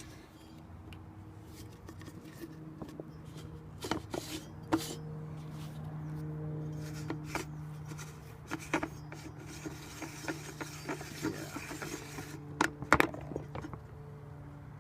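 Scattered clicks, knocks and scraping as the plastic and metal parts of an Emerson Evergrind E202 garbage disposer are handled and worked loose by hand, under a steady low hum. The sharpest knocks come about a third of the way in and again near the end.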